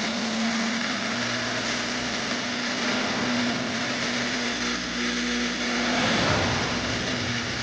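A small motor running steadily with a whirring hum, which shifts about six seconds in.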